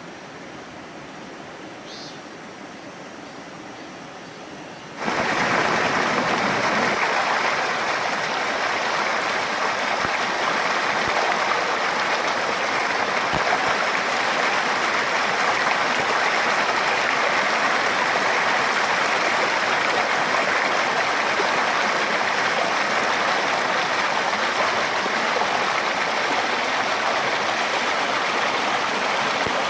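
Mountain valley stream rushing in a steady hiss. About five seconds in, it jumps suddenly to a much louder, fuller rush of water.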